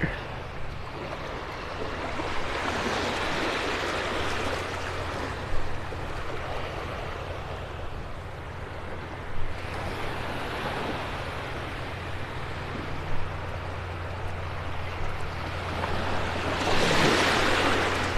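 Small Gulf waves washing over the shallows, the surf noise swelling and fading about three times and loudest near the end, over a steady low hum.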